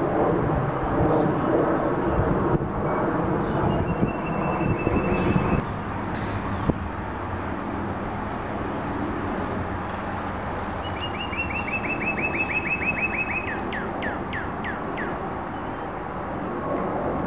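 Jet airliner engines overhead, a steady rumble that drops off about five seconds in. A songbird sings fast trills of short high repeated notes twice, the second followed by a few quick falling notes.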